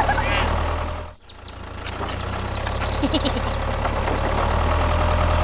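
Steady low motor hum, like a small engine running at idle, cutting out for a moment about a second in and then carrying on.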